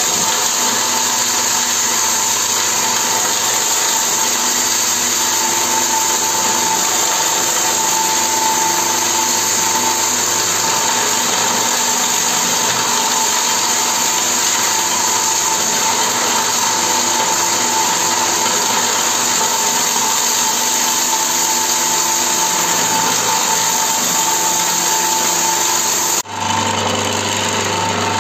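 An АИП-10 bee-bread extractor running steadily with a constant whine, its beater knocking the bee bread out of frozen comb cuts fed into the hopper. The sound cuts out briefly near the end.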